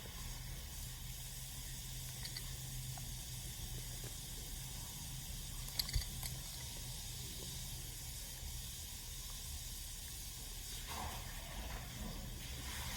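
Steady hiss with a low hum underneath, and a single short tap about six seconds in.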